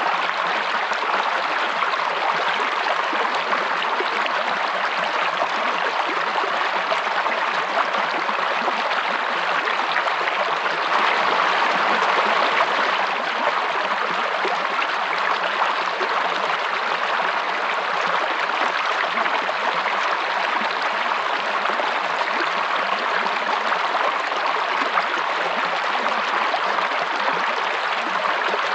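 Stream water running steadily, a continuous rush that swells slightly about halfway through.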